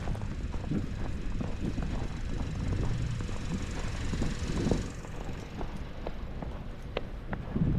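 Road traffic going by: engine rumble and tyre hiss from a passing vehicle that fades away about five seconds in. Scattered short knocks, likely footsteps, are heard throughout.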